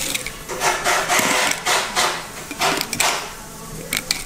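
Fillet knife slicing along a redfish's rib cage and backbone, a rasping scrape in a few strokes as the blade works through the flesh against the bones.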